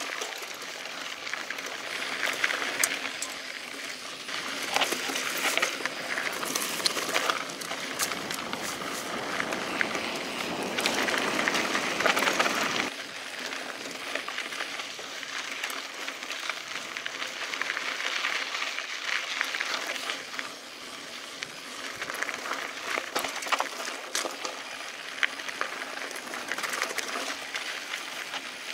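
Mountain bike rolling along a dirt and gravel trail: steady tyre noise on loose ground with scattered clicks and rattles, louder for a stretch that drops off sharply about thirteen seconds in.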